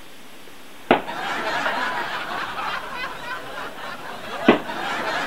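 Stifled giggling and snickering from a few people, with two sharp knocks, about a second in and near the end.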